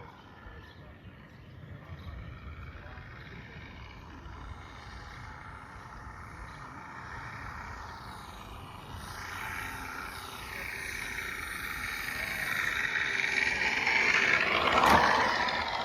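Radio-controlled P-51D Mustang scale model flying, its onboard sound system giving a simulated piston engine and whistle. The sound grows louder and bends in pitch as the model approaches, and is loudest in a close pass near the end.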